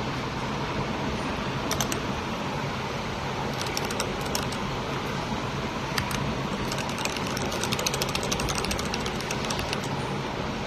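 Keystrokes on a Keycool KC84 mechanical keyboard with linear red switches: a few scattered presses, then a quick run of fast typing from about the middle. A steady background hum lies under them.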